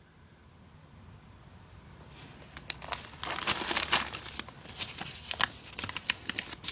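Packaging crinkling and rustling as it is handled, in quick irregular bursts that start about two and a half seconds in.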